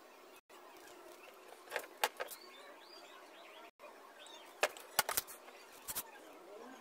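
Handling noise from painting supplies: a plastic bag crinkling and a few sharp clicks and taps as a plastic paint bottle and a wooden stick are picked up and used. Faint bird chirps sound in the background, and the sound drops out for an instant twice.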